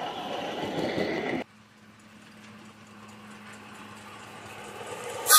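A ride-on miniature train running past on raised track; it cuts off abruptly about a second and a half in. Then a miniature live-steam locomotive draws nearer, its running sound swelling slowly over a steady low hum, with a short loud burst near the end.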